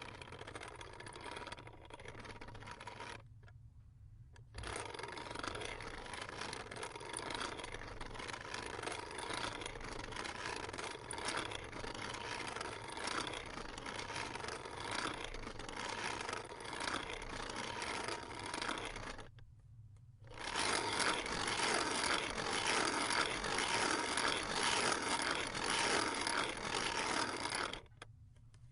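Coffee grinder grinding beans: a continuous gritty, rasping grinding noise. It stops briefly about three seconds in, again around twenty seconds in, and once more near the end.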